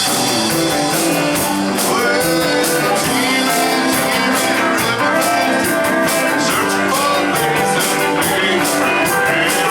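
Country honky-tonk band playing an instrumental break: guitars over a drum kit keeping a steady, even beat, with some sliding notes.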